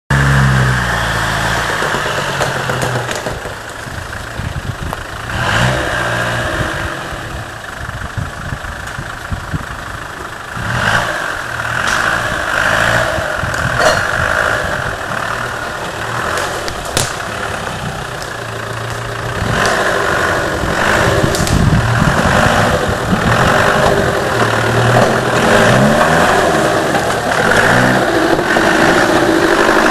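Land Rover engine working off road, revving up and easing off again and again in rising and falling pitch, with scattered knocks and clatter.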